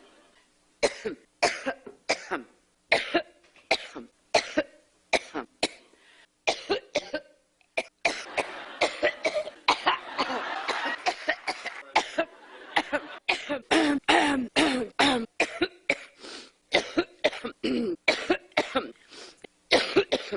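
A woman's coughing fit: dozens of short, harsh coughs in rapid runs, with a denser stretch of coughing in the middle.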